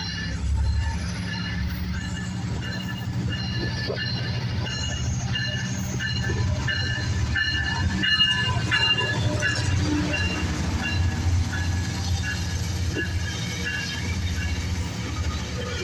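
Metrolink EMD F59PH diesel locomotive rolling past at close range, its engine running with a steady low rumble, as the train pulls into the station. High-pitched wheel and brake squeal rides over it, strongest in the middle as the locomotive and the first bilevel coach go by.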